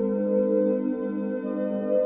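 Background music: slow ambient music of sustained, held tones.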